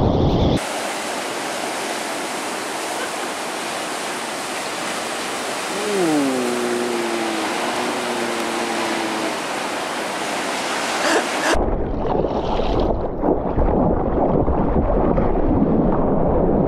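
Ocean surf breaking, heard as a steady hiss with the bass thinned out. About halfway through, a long call slides down in pitch and then holds. Near the end this gives way to close, choppy water splashing and sloshing against the microphone of a board-level action camera.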